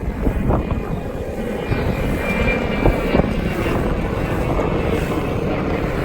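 Skateboard wheels rolling steadily over pavement, with a couple of light knocks from the board about half a second and about three seconds in.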